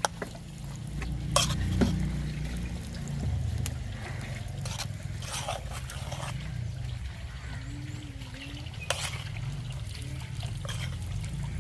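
Liquid pouring and trickling during porridge cooking, with a few sharp knocks of utensils over a steady low rumble.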